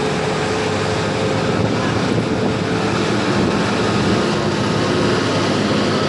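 Steady rush of water spraying onto a muddy toy truck as it is washed, an even hiss without breaks.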